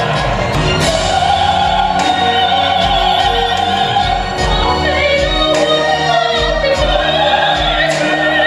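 A woman singing a solo song with vibrato over instrumental accompaniment, holding a long note for about three seconds.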